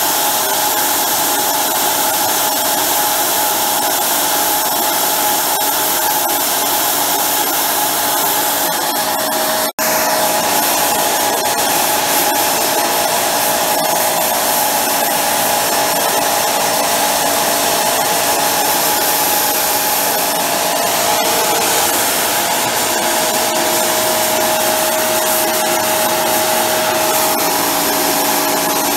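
Homemade propane micro jet engine, a swirl burner fed by a high-velocity compressed-air jet, running lit: a loud steady rushing hiss with a steady whistling hum. It cuts out for an instant about ten seconds in.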